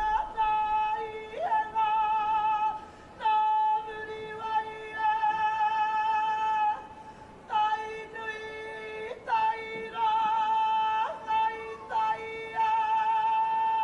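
A lone woman's voice singing a Māori solo call, holding long high notes with a wide vibrato, in phrases of a few seconds each broken by short pauses for breath.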